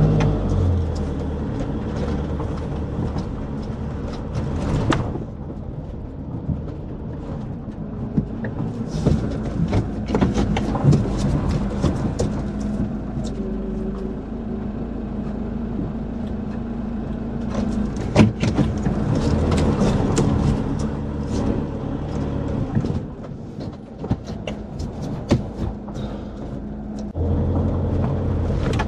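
Motorhome engine running at low speed, heard from inside the cab, with scattered clicks and knocks as it rolls slowly over a rough dirt track. The engine grows louder near the end.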